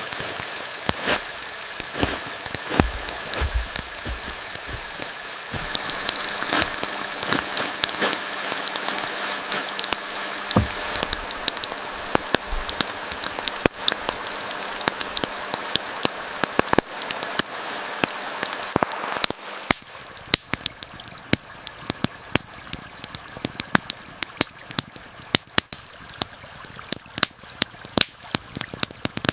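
Steady rain falling, with many sharp pops scattered through it. About twenty seconds in the rain hiss falls away, and the pops carry on over a quieter background.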